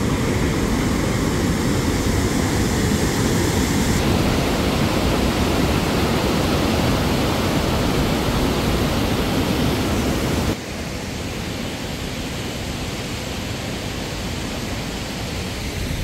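Noisy rushing of a fast Alpine mountain stream pouring over rocks, a steady even wash of water. It drops suddenly to a quieter level about ten seconds in.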